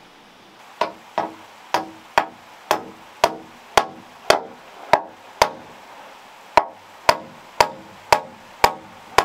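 Repeated blows of a hand tool on a timber roof rafter: sharp knocks about two a second, each ringing briefly, with a pause of about a second near the middle.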